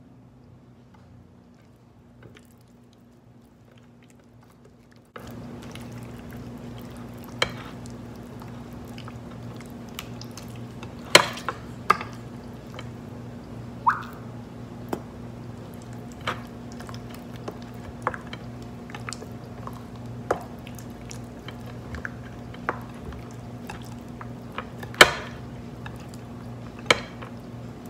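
Hands rubbing ketchup into raw pork spare ribs: soft wet squishing, with several sharp clicks and knocks from handling the dishes and one short squeak. About five seconds in, a steady hum starts up and keeps going underneath.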